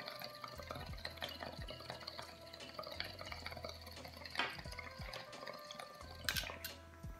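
Water bubbling in a glass dab rig as a dab is drawn through it: uneven gurgling pops, with louder bursts about four seconds in and again near the end.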